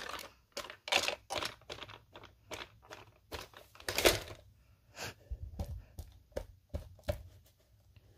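Handling noise of toys being played with on carpet: a scatter of soft taps, thunks and rustles as a plastic toy dinosaur is moved and set down near paper signs, with one louder rustle about four seconds in.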